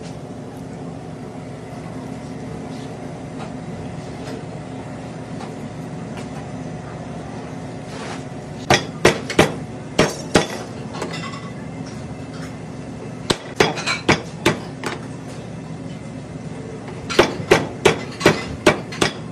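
Cleaver striking fish fillets on a plastic cutting board in three quick runs of sharp blows, each lasting about a second and a half, over a steady hum.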